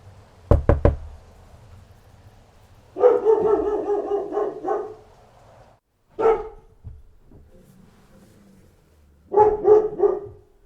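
A dog barking in bursts: a quick run of barks lasting about two seconds, then a single bark, then about three barks near the end. Three sharp knocks come about half a second in.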